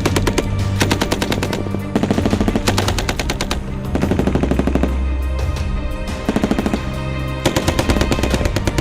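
Machine gun firing several rapid bursts of automatic fire with short pauses between them, over background music with a steady low bass.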